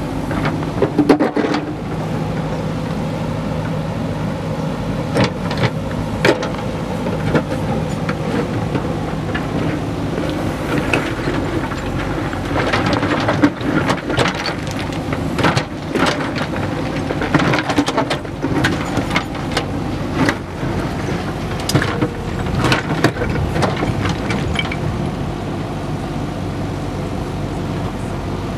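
JCB backhoe loader's diesel engine running steadily as its rear bucket digs into a pile of broken stone. Repeated knocks and clatter of rocks striking the steel bucket and the tractor trolley come through again and again.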